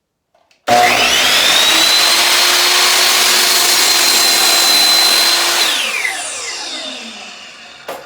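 Electric miter saw switched on, spinning up in a fraction of a second to a steady high whine while it makes a cut through a piece of wood. About five seconds in it is switched off, and the blade winds down with a falling pitch over a couple of seconds. There is a sharp knock near the end.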